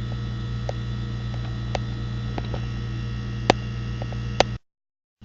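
Steady low electrical hum with a few sharp small clicks as a compression nut is threaded onto a plastic-tubing coupling; the sound cuts out abruptly near the end.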